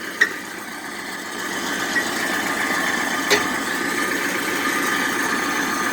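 An engine running steadily, growing louder over the first second and a half and then holding even, with one sharp click about three seconds in.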